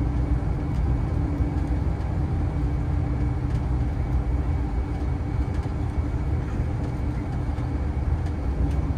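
Cabin noise on the top deck of a double-decker coach cruising on a motorway: a steady low drone of engine and road rumble, with occasional faint ticks and rattles.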